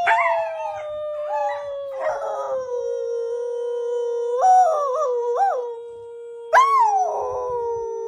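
Dogs howling: long drawn-out howls that slide down in pitch and then hold, two of them overlapping, with a few short rising yips about four and a half seconds in.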